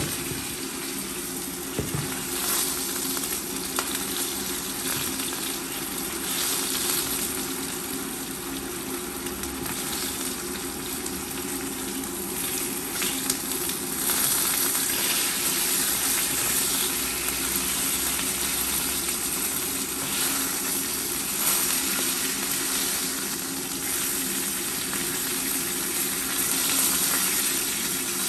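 Chicken pieces frying in hot oil in a pan over high heat, sizzling steadily, with a few light clicks.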